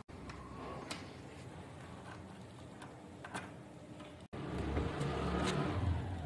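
A few sharp metal clicks and ticks, a couple of seconds apart, as a door handle's square metal rose plate is set against the door and an Allen key is fitted to its grub screw. A low rumble runs under the second half.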